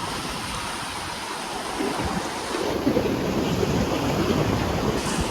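Sea waves washing onto a beach, with wind buffeting the microphone; the surf and wind grow a little louder about two seconds in.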